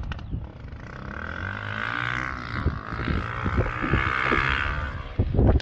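A motor vehicle's engine droning steadily in the distance, fading out near the end, while wind buffets the microphone in gusts, hardest just before the end.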